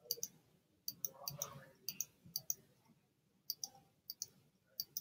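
Computer mouse buttons clicking at an irregular pace, about a dozen quick clicks, many coming as close pairs.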